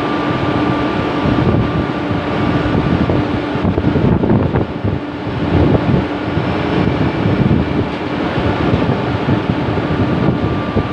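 Wind buffeting the microphone in uneven gusts over a steady machinery hum.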